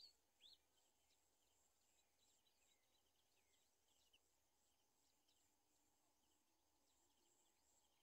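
Faint, thin cheeping of nestlings in the nest: many short, high, downward-sliding peeps scattered throughout, the two loudest in the first half second, over a steady faint high hum.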